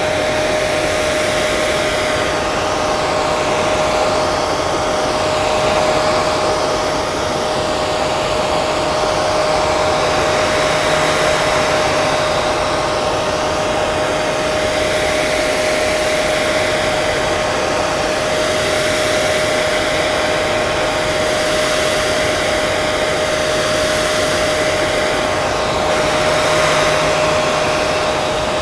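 Hair dryer running steadily, its airflow rushing with a constant motor whine, the tone slowly swirling in the higher range.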